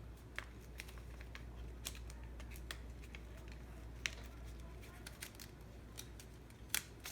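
Origami paper being folded and creased by hand: faint, scattered crisp ticks and light rustles, with a sharper snap near the end.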